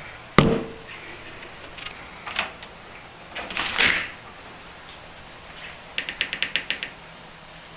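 A single sharp knock on a door, then softer sounds as the door opens. Near the end comes a quick run of about eight light clicks.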